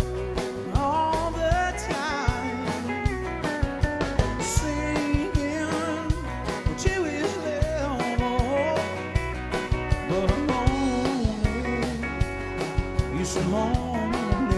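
Live country band playing: pedal steel guitar, electric and acoustic guitars and bass over a drum kit keeping a steady beat, with a sung vocal line.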